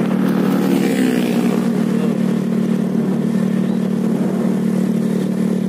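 Motorcycle running at a steady speed, heard from the bike itself: a constant engine drone under an even rush of road and wind noise.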